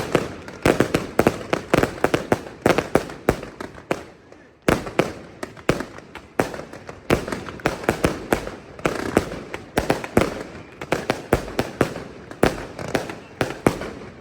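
Fireworks display: a rapid string of sharp shell bursts and reports, several a second, with a brief lull about four seconds in before a loud burst restarts the volley.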